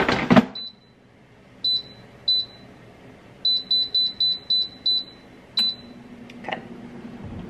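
Digital air fryer's basket clunking into place, then its touch control panel beeping as it is set: a few single beeps, then a quick run of about seven beeps while the timer is stepped up to 10 minutes, and one last beep. After the last beep a steady low hum comes in as the fryer starts running.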